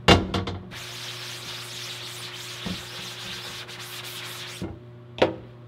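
A brush scrubbing a screen-printing screen's mesh during ink reclaiming: about four seconds of rough, continuous rubbing. It is opened by a sharp knock and followed by a short click near the end.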